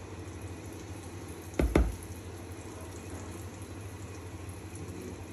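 Dal-batter fritters frying in hot oil in a pan, a steady sizzling hiss. About one and a half seconds in, a metal spoon knocks twice in quick succession.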